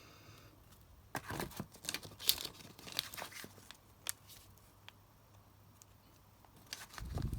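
Firework packaging being handled, crinkling and rustling, with irregular short crackles and taps, mostly in the first half and again near the end.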